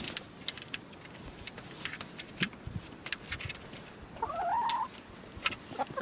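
Hens: one drawn-out call lasting under a second, about four seconds in, among scattered sharp clicks.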